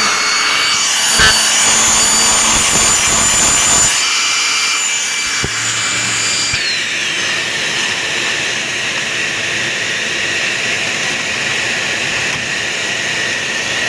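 Bissell Healthy Home upright vacuum cleaner running with its turbo brush attachment: a loud, steady rush of air with a high motor whine and a couple of light knocks. About six and a half seconds in, the whine slides down in pitch and the running noise carries on lower.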